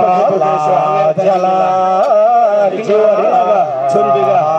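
Ache Lhamo opera singing: long, held notes with a wavering, ornamented pitch that slides up and down.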